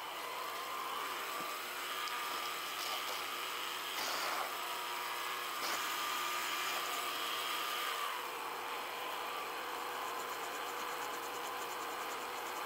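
Small metal lathe running steadily, turning an oil-hardening tool-steel rod with a cutting tool; the cutting noise eases off about eight seconds in. Near the end a hand file is worked against the spinning rod.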